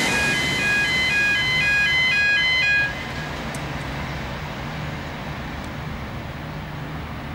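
Bombardier VLocity diesel multiple unit passing close, its engines and wheels loud, while a short tune of high chiming notes plays over it; about three seconds in the noise drops sharply and the chime stops, leaving a quieter steady low engine hum as the train draws away.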